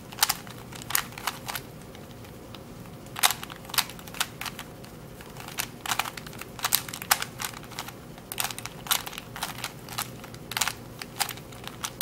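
Plastic Rubik's Cube being turned by hand: an irregular run of sharp clicks and clacks as the layers are twisted, coming in quick clusters with short pauses between them.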